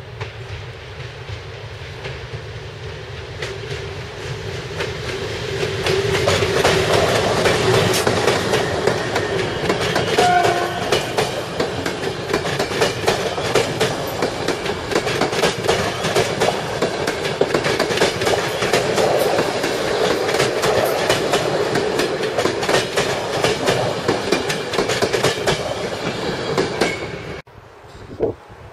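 Express passenger train hauled by an EP09 electric locomotive approaching and passing close by: growing louder over the first few seconds, then the steady rumble of the coaches with rapid clickety-clack of wheels over rail joints, cutting off suddenly near the end.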